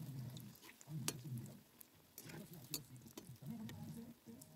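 Metal spatula clicking and scraping against an iron kadai as bread pieces are turned in hot oil, a few sharp clinks over a faint sizzle.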